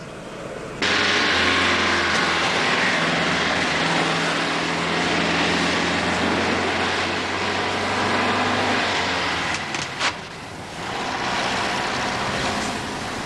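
A vintage car driving along a road: steady engine hum and tyre and road noise that come in suddenly about a second in. The sound dips briefly about ten seconds in and runs on quieter as the car moves away.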